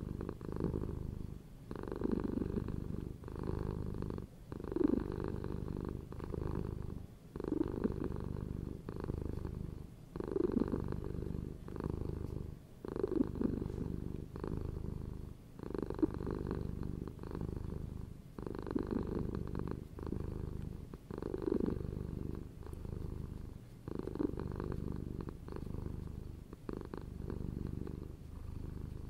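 Domestic cat purring close up, a steady low rumble that swells and eases with each breath, about every two and a half seconds.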